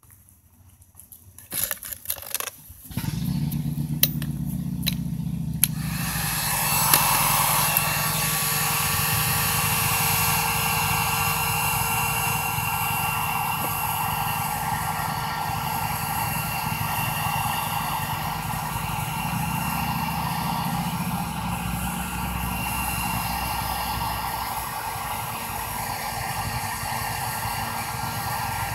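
Electric heat gun switched on after a few clicks, about three seconds in, then running steadily: fan motor hum and the rush of blown hot air while it heats the end of a stiff garden hose.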